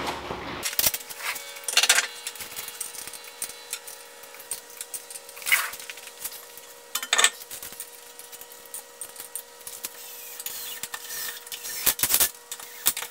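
Scattered knocks and light metallic clinks of a car wheel being hung back on a front hub fitted with a 5 mm wheel spacer, with lug nuts being handled; a few louder knocks, two close together near the end. A faint steady hum lies underneath.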